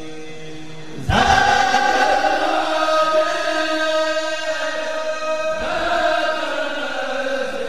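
Male voices chanting together in long, held notes; a new phrase comes in loudly about a second in and another swells up a little past the middle.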